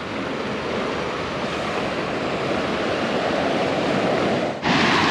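Pacific surf washing onto the beach: a steady rush that slowly swells, with a sudden louder rush of noise near the end.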